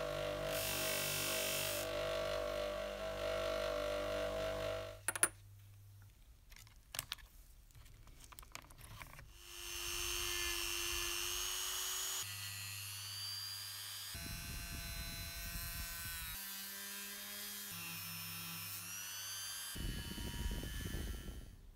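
A motor runs steadily and stops abruptly about five seconds in, followed by light clicks of small tool bits being handled. Then a handheld rotary tool (Dremel) spins up with a rising whine and runs at high speed, its pitch shifting in steps, as a felt polishing wheel charged with green compound buffs a small metal part.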